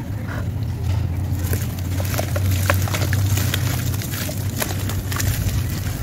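Dry sand-cement chunks crushed and crumbled by hand, with the powder pouring and sifting into a plastic tub: a gritty crackle and a pouring hiss, over a steady low hum.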